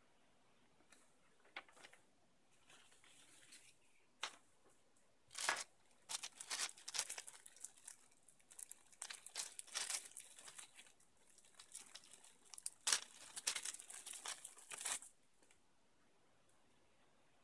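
Packaging crinkling and rustling as it is handled and opened, in irregular bursts of crackle that stop a couple of seconds before the end.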